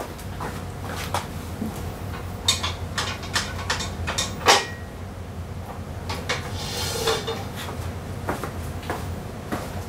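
Workshop metal clatter as a lift jack and stands are handled and moved on a concrete floor: a series of separate clanks and knocks, the loudest about halfway through, with a scraping stretch soon after, over a steady low hum.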